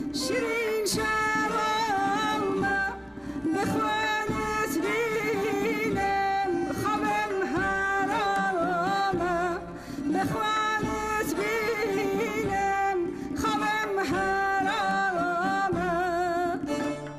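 A woman singing a Kurdish folk song with instrumental accompaniment. Her long phrases are heavily ornamented with wavering trills, and she breaks briefly about three seconds in and again near ten seconds.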